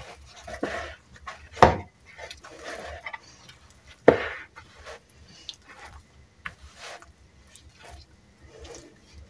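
Hands kneading soft dough in a plastic bowl: irregular squishing and slapping, with two louder thumps, about one and a half seconds and four seconds in.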